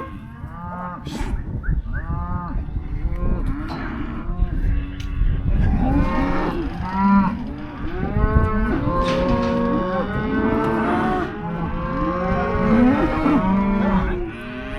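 A group of cattle mooing and bawling, many calls overlapping one after another without a break, over a steady low rumble. This is the bawling of cows and calves being sorted apart for weaning.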